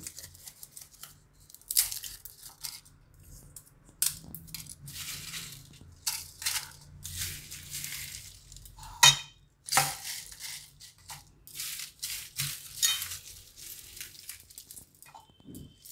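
Dry-roasted whole spices (dried red chillies, cinnamon sticks, bay leaves and seeds) rustling and clattering as they are dropped by hand into a stainless steel mixer-grinder jar. Irregular crackles throughout, with a few sharper clinks against the metal.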